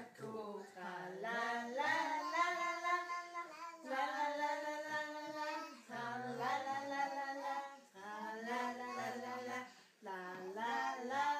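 A toddler singing a Danish song alone, in several drawn-out phrases with short breaths between them.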